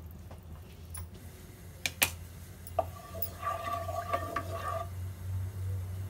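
Metal cookware and a spoon being handled on the stove while oil heats in the pan: a few sharp clinks, then a brief metallic ringing tone, over a low steady hum.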